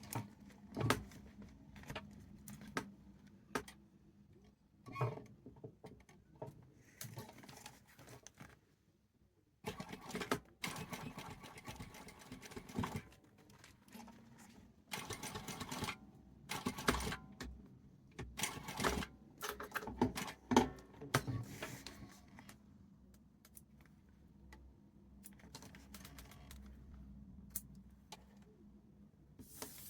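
Sewing machine stitching in short stop-start runs, with pauses and small handling knocks between them, sewing a seam to close the end of a bag's side panel.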